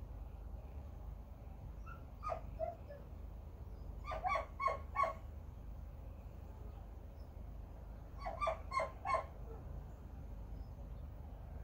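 A dog barking in short runs: one or two barks about two seconds in, then two quick runs of about four barks each, around four and eight seconds in, over a low steady hum.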